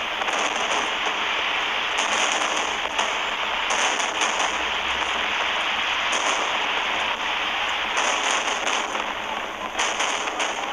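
Aerial fireworks crackling in a dense, continuous rain-like sizzle, with brighter surges about every two seconds.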